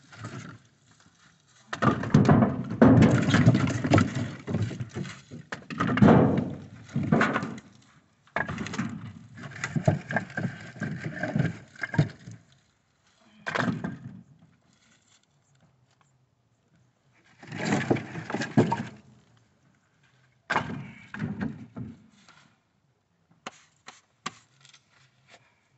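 Split firewood being tossed into a pickup truck bed, the logs clattering and thunking onto the pile in several bouts with short pauses between.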